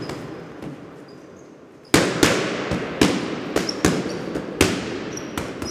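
Logo-intro sound effect: a faint hiss for about two seconds, then a run of about eight sharp, echoing bangs at uneven spacing, like firecrackers.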